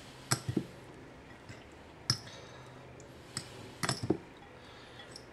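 A metal fork clinking against a bowl while stirring instant noodles: a handful of short, sharp clinks at irregular intervals.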